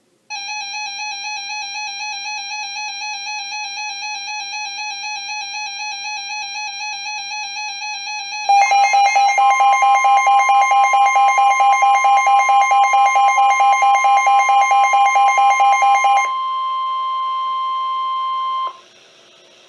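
An electronic alarm warbles steadily for about eight seconds, then turns louder and pulses several times a second. About a second later the steady NOAA Weather Radio alert tone joins it, the tone that signals a warning-level alert. The pulsing alarm stops around sixteen seconds in; the steady alert tone carries on alone, then cuts off abruptly near the end.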